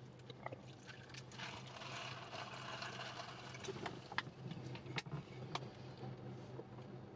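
Car engine running, heard from inside the cabin as a steady low hum, with a few sharp clicks and light rattles about four to six seconds in.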